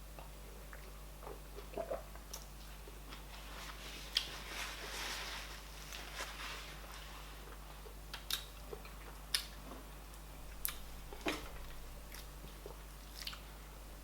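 Close-up eating sounds of a person chewing and biting fufu with oha soup: irregular wet mouth clicks and smacks, with a softer stretch of chewing noise in the middle.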